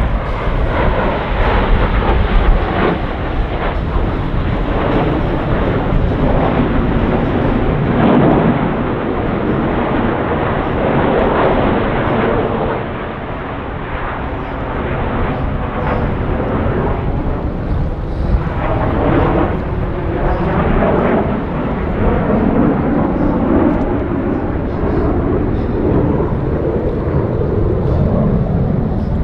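Jet engine noise from US Navy Blue Angels F/A-18 Super Hornets in an air show display, loud and rising and falling as they pass.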